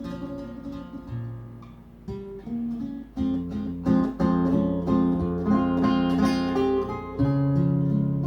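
Instrumental break of a ballad led by acoustic guitar, plucked and then strummed, played back over a hi-fi system; it swells fuller and louder about three seconds in.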